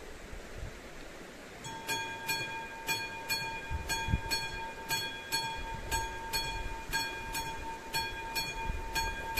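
Classic mechanical warning bell of an AŽD 71 level-crossing signal starting to ring about two seconds in and striking steadily about two and a half times a second, a ringing tone between strokes: the crossing has been activated for an approaching train.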